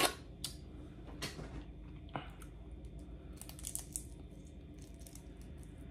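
Boiled crawfish shells cracking and snapping as they are peeled by hand: a scattering of faint, short clicks.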